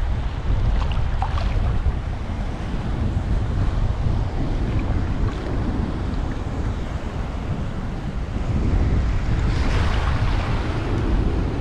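Wind buffeting the microphone over choppy sea waves washing around a wader, with a louder rush of water about ten seconds in.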